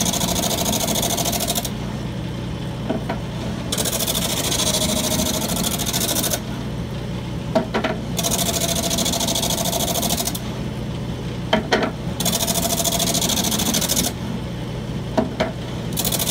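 Lathe-driven drum sander running with a steady hum while a piece of wood is fed through it in repeated passes: each pass is a loud sanding hiss lasting two to three seconds, about four in all. A few short knocks fall between the passes.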